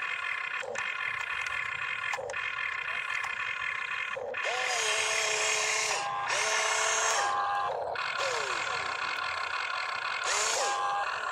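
Radio-controlled excavator working, its electric motors whining and rising and falling in pitch as the boom and bucket move, with a few short knocks.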